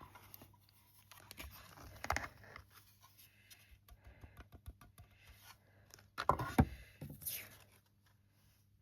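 Card being handled and tapped to shake loose embossing powder off a stamped image into a tray: light rustles, scrapes and small taps, with a louder burst of scraping and knocks about six seconds in.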